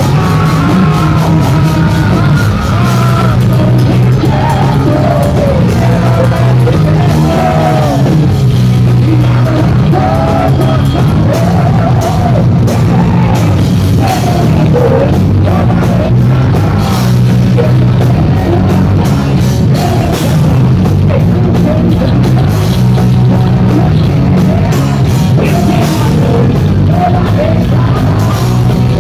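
Heavy metal band playing live and loud: a male singer's sung melody over bass guitar, electric guitar and a pounding drum kit.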